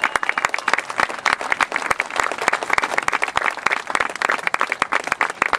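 Crowd applauding: dense, rapid, irregular clapping from many hands.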